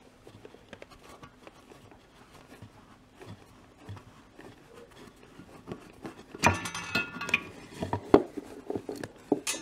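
Small clicks, then a loud ringing metal rattle about six and a half seconds in, followed by a few knocks and a sharp clank near the end: the steel ring gear locking tool being worked free from the flywheel ring gear.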